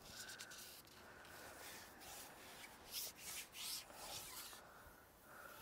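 Faint rubbing and rustling from a fishing pole being slid out through the angler's hands, in several short bursts, the loudest a little past the middle.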